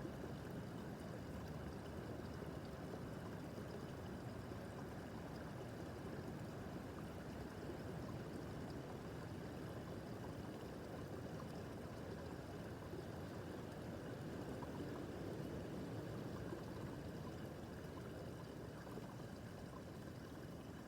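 Small brook babbling over stones: a steady rush of flowing water with soft gurgling.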